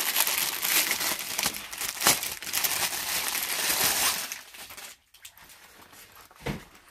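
Thin plastic poly bag crinkling as it is pulled off a new backpack. The crinkling stops about four seconds in, and a single soft knock follows near the end.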